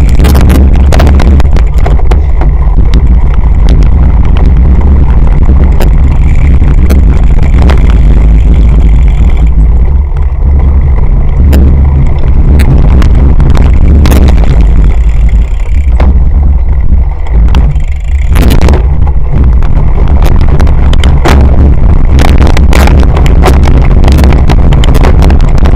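Loud, steady wind rumble on a bike-mounted action camera's microphone while riding a cyclocross bike over rough dry ground, with frequent knocks and rattles as the bike jolts over bumps.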